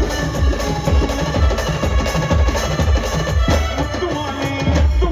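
Brass band music with a dense, steady drum beat under sustained horn tones; the drumming stops at the very end.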